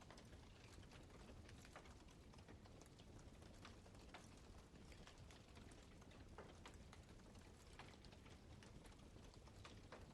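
Wood campfire crackling faintly, with irregular sharp snaps and pops over a low hiss of burning.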